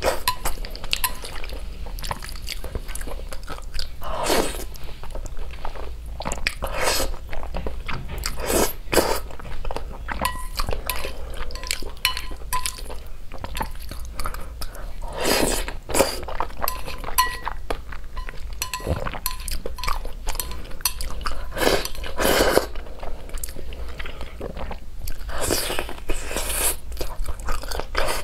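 Eating sounds from a person slurping black bean sauce noodles and chewing, with a few longer slurps a few seconds apart among many small mouth clicks and chopsticks clicking on the plate.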